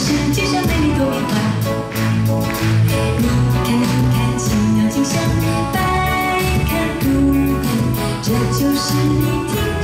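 A live band of electric guitar, keyboards and drums plays with a steady beat while a woman sings into a microphone, all amplified through a concert PA.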